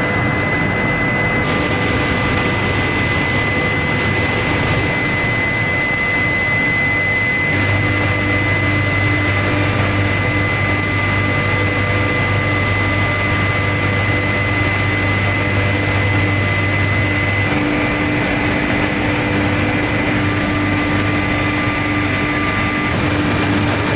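Induction heating machine running under power: a steady, loud mix of noise with a high-pitched whine and lower hum tones, whose balance shifts a little about a third and two-thirds of the way through.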